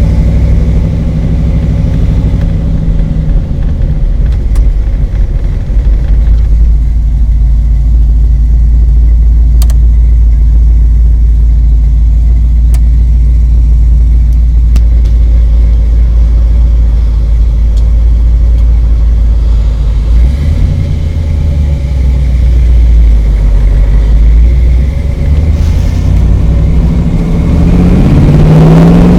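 The 1968 Camaro SS's rebuilt 327 small-block V8, breathing through full-length headers and dual exhaust, heard from inside the cabin while the car is driven: a low steady drone for most of the stretch, then rising in pitch near the end as the car accelerates.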